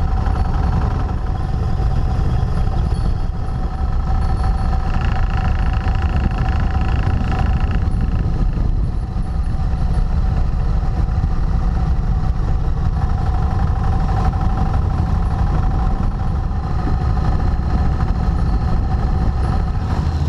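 Cruiser motorcycle engine running steadily while riding at road speed, with wind rushing over the handlebar-mounted microphone.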